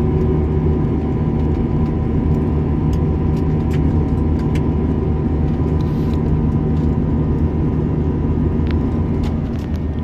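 Airliner cabin noise in flight: a steady, even rumble of engines and airflow, with several constant hums running through it and a few faint small clicks.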